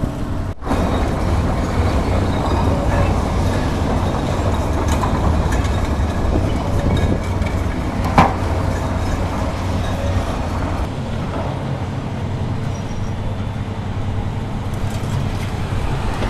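Heavy demolition machinery, a Komatsu tracked excavator's diesel engine among it, running steadily with a low rumble while rubble is worked. One sharp metallic clang about eight seconds in.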